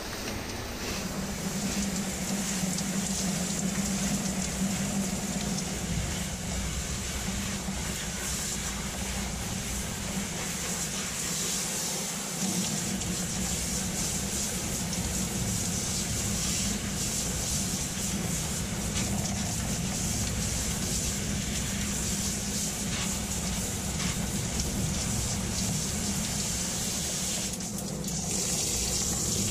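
Handheld shower head spraying a steady stream of water onto a fur jacket, the spray hissing and splashing without a break.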